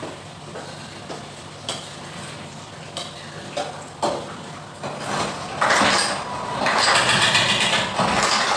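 Metal knocks a few times against a wok over a steady fan hum, then loud sizzling in the wok starts about five and a half seconds in.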